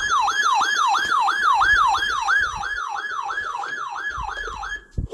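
Electronic siren sounding a fast repeating sweep, about three cycles a second, sliding between high and low pitch each cycle. It cuts off suddenly just before the end, followed by a click.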